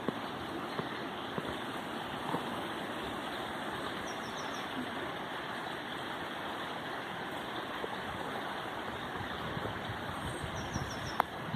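Small brook babbling over stones in a steady, even rush of water. A small bird chirps briefly twice, a quick run of short notes each time.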